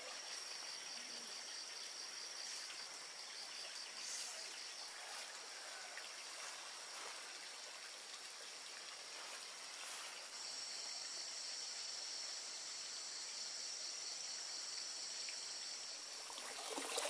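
Insects trilling steadily at a high pitch over faint outdoor background, with a second, higher trill joining about ten seconds in. Near the end a louder rush of trickling water begins.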